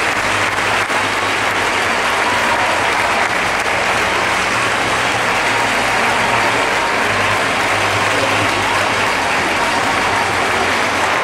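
Audience applauding steadily, a dense clapping that keeps up without a break.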